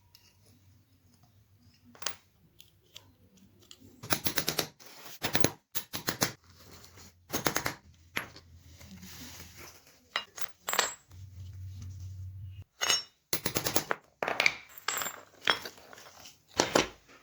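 Sharp metallic clinks and short rattles, irregular and several seconds apart, from a rusty antique padlock and its metal parts being handled.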